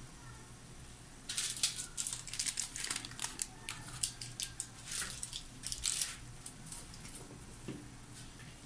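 Dry, irregular crinkling and crackling for about five seconds, starting a second or so in, as crushed black pepper is shaken or ground over chicken gizzards simmering in a wok, with a faint steady low hum beneath.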